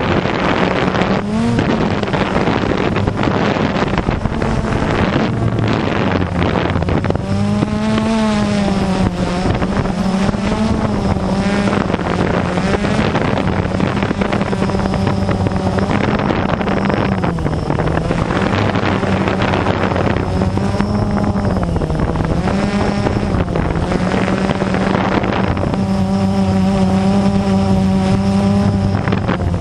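Quadcopter drone's electric motors and propellers whirring right at the onboard camera, a steady hum whose pitch dips and rises again and again as the drone manoeuvres, with wind buffeting the microphone.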